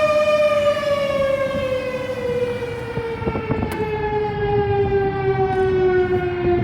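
STH-10 fire siren winding down as it sounds for a fire call: its tone holds for a moment, then falls steadily in pitch. There is a single click about two-thirds of the way in.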